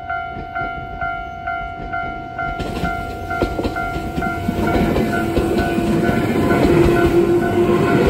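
Japanese level crossing's electronic warning bell, in its standard tone, chiming about twice a second. A couple of seconds in, a Jōmō Electric Railway train arrives and passes through the crossing. Its wheels clatter over the rail joints, and its running noise grows loud enough to swamp the bell.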